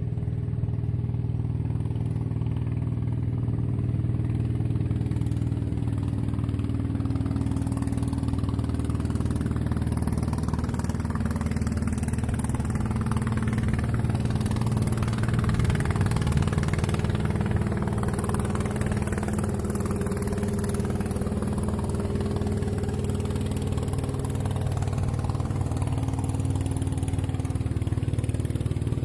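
A small motorboat's engine running steadily, louder and then fading again in the middle as the boat passes on the river.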